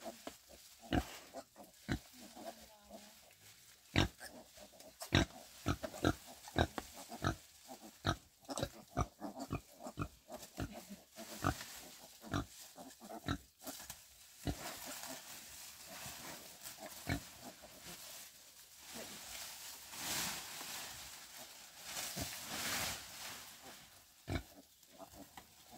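Pigs grunting in short, irregular grunts, thickest in the first half, with two stretches of rustling near the end.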